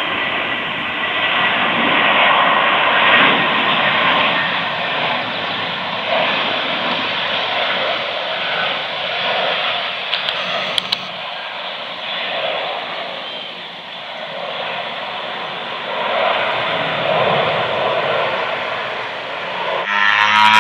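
LATAM Airbus A320 airliner's jet engines running as it comes in on final approach and touches down: a steady rushing roar that dips and swells. Music begins just before the end.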